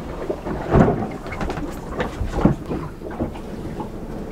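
Low rumble with irregular knocks and thumps aboard a small sportfishing boat, the loudest knocks about a second in and again past halfway.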